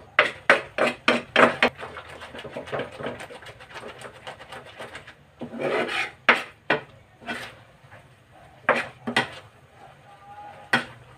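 A spoon scraping and stirring thick cheese sauce around a frying pan. A quick run of strokes at first gives way to slower, scattered scrapes.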